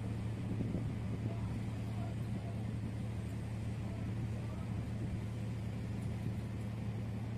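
Offshore supply vessel's diesel engines running under way, a steady low hum.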